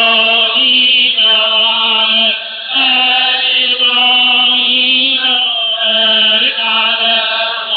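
Religious chanting: a single voice holding long, drawn-out notes with a slight waver, broken by short pauses between phrases.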